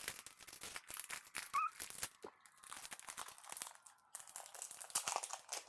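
One Piece Card Game booster pack wrapper crinkling and tearing as it is opened, a dense run of irregular crackles.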